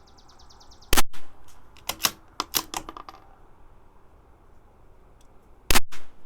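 CZ 457 bolt-action .22 LR rifle firing Lapua X-ACT match ammunition: one shot about a second in, a run of clicks as the bolt is worked, and a second shot near the end.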